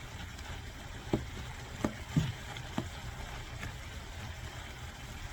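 Chicken and vegetable stir fry simmering in a pan with a little water or stock: a steady low bubbling, with a few short pops between one and three seconds in.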